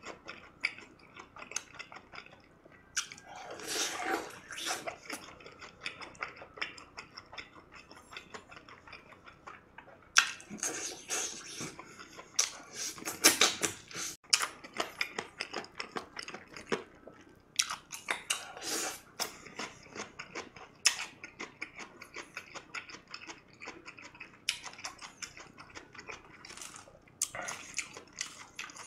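A person chewing and crunching crispy fried chicken close to the microphone. Many small crackles and wet chewing sounds come through, with louder bursts of crunching every few seconds.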